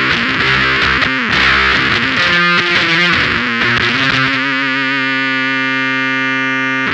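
Electric guitar played through the Mask Audio Electronics Screws octave fuzz pedal into a Boss Katana amp: heavily distorted fuzz riffing, then a chord held and left to ring from about four seconds in.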